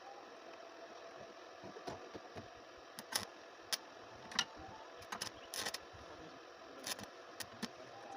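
Sharp clicks and knocks of tools or parts being handled, a dozen or so at irregular intervals, over a faint steady hum.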